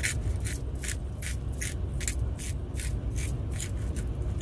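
Hand-twisted spice grinder being turned over a bowl: a steady run of short grinding clicks, about three a second.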